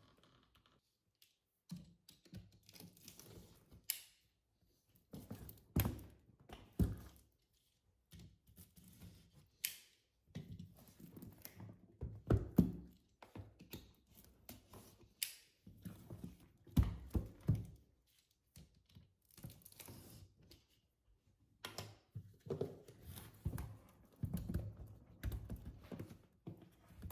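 A hair dryer's retail box being handled and opened: irregular thuds, taps and rustling of the packaging, with short pauses between.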